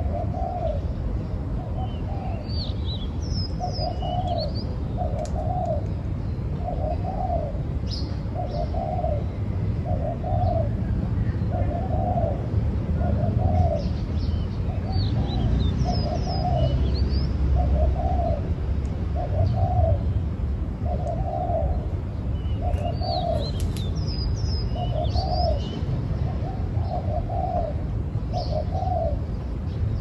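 Spotted dove cooing over and over, low coo notes coming mostly in pairs in a steady rhythm. Other small birds chirp high a few times.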